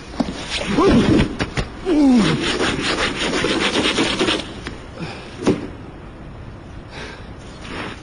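Fast rhythmic scraping, several strokes a second for about two seconds, after a few falling squeaky glides; a single sharp knock follows later.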